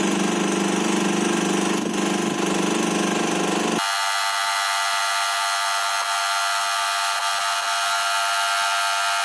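Compression testing machine's motor-driven hydraulic pump running with a steady hum of several even tones while it loads a concrete cube. About four seconds in, the lower part of the hum drops out suddenly, leaving a higher whine.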